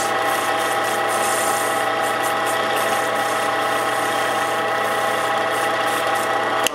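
Wood lathe running steadily at about 1800 rpm with a steady motor whine, while coarse sandpaper is held lightly against the spinning wooden pen blank and hisses. The sound changes abruptly near the end.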